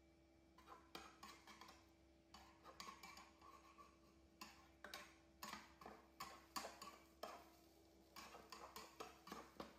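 Metal spatula scraping and tapping against a nonstick frying pan as thick pancake batter is stirred and spread. It makes quick, light, irregular clicks, starting about half a second in, over a faint steady hum.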